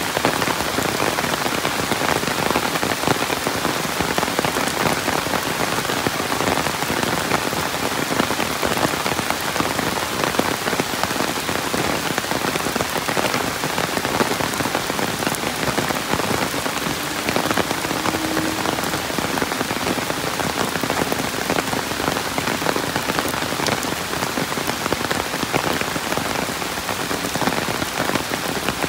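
Steady rain falling, a dense, even patter of countless drops on surfaces.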